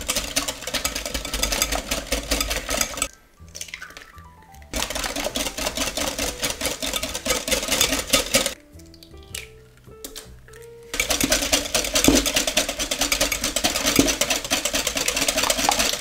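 Wire balloon whisk beating butter, cream cheese and eggs in a glass mixing bowl, its wires clattering fast and steadily against the glass in three long spells. Soft background music fills the short pauses between them.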